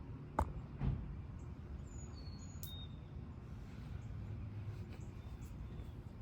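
Steady low outdoor rumble with two dull knocks about half a second apart near the start, and a few short high chirps about two seconds in.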